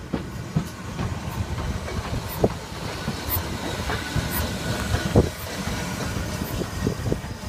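LMS Ivatt Class 2MT 2-6-0 steam locomotive No. 46512 and its coaches rolling past along the platform, wheels rumbling and knocking irregularly over the track, with the loudest knock about five seconds in.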